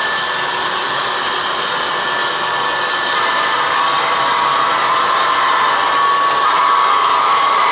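HO scale model freight train running on the track, a steady whirring of the locomotive motors and rolling wheels. It grows louder about three seconds in as the lead locomotive approaches.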